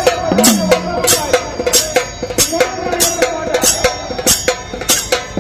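Maharashtrian drum troupe playing dhol and dholki drums together in a fast, driving rhythm, sharp strokes about three a second, with a held, wavering melody over the drumming.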